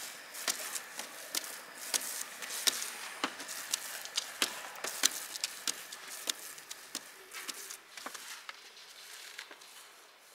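Irregular sharp taps and clicks on galvalume steel roofing panels, a few a second, from a painter moving and rolling paint on the roof. They thin out and fade over the last couple of seconds.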